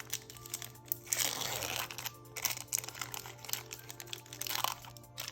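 Foil Yu-Gi-Oh booster pack crinkling and rustling as it is handled and opened, with a longer crinkle about a second in. Faint background music plays underneath.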